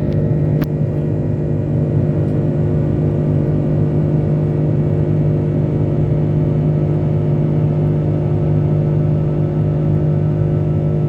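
Rolls-Royce Trent 700 engines of an Airbus A330-300 heard from inside the cabin: a loud, steady drone with a strong low hum and several steady tones above it.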